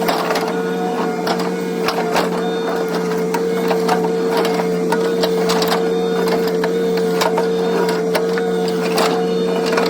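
Hitachi mini excavator running with a steady hydraulic whine, with irregular sharp clicks and knocks from the grapple attachment at work.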